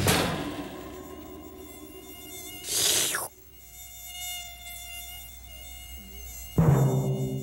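Cartoon sound effects: a short hissing, crackling burst about three seconds in, then a thin, high, steady buzz. Near the end comes a sudden louder sound with low tones that fall away.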